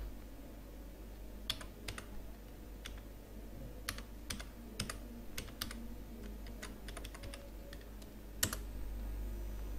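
Computer keyboard typing: irregular, scattered keystrokes, a few in quick clusters, with one louder keystroke about eight and a half seconds in, over a faint low hum.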